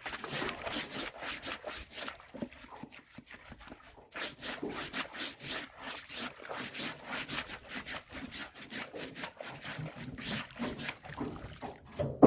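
Bamboo fish trap being handled, scraping and rattling in quick strokes. There is a short lull about four seconds in and a loud knock right at the end.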